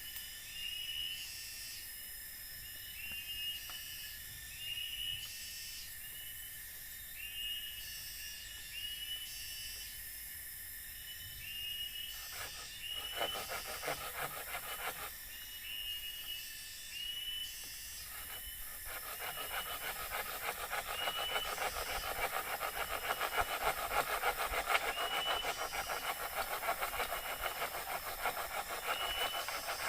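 Forest ambience: a steady high insect drone and a short chirping call repeating about once a second. About two-thirds of the way through, a dense, fast rasping sound comes in and grows louder.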